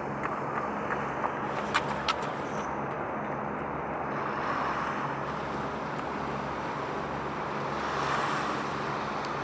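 Wind buffeting the microphone over open water, with a faint steady low hum and a couple of sharp clicks about two seconds in.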